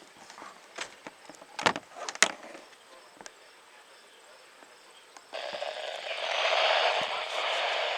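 A few sharp clicks and knocks. About five seconds in, a weather radio receiver's speaker comes on with a sudden steady hiss of static, which swells a second later.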